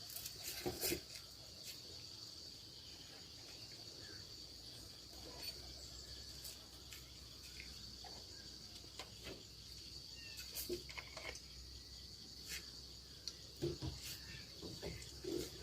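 Crickets trilling in a steady, high-pitched drone, with faint scattered clicks and knocks.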